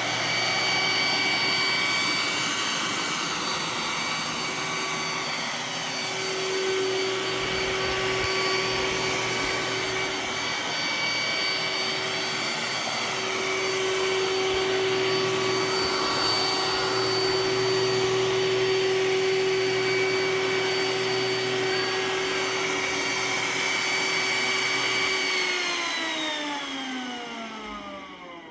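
Roomba s9 robot vacuum running a spot clean: a steady motor whine over suction and brush noise. Near the end the motors wind down with a falling whine as it stops.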